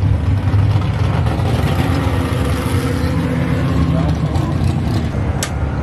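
Race car V8 engine running steadily and loudly, without revving. A single sharp click sounds near the end.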